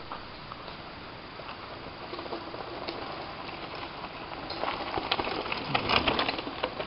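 Mountain bike tyres crunching and crackling over a loose gravel trail, growing louder as a rider passes close by in the second half.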